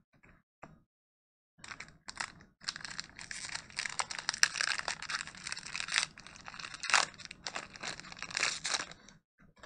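Foil wrapper of a Pokémon TCG booster pack crinkling and tearing as it is ripped open by hand, starting about one and a half seconds in and stopping shortly before the end.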